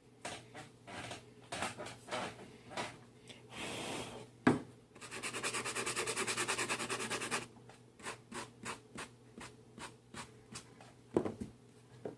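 Scratchy hand rubbing in short strokes, with a stretch of fast back-and-forth scrubbing about five seconds in. Two sharp knocks stand out, one just before the scrubbing and one near the end.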